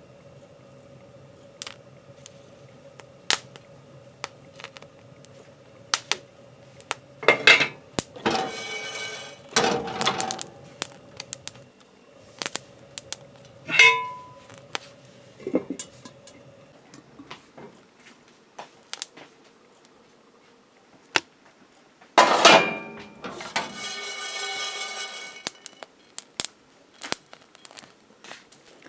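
Barley grains popping and toasting in a hot cast-iron skillet, with scattered sharp pops throughout. Twice, about seven seconds in and again about twenty-two seconds in, a longer loud rattle as the grains are stirred or shaken across the iron pan.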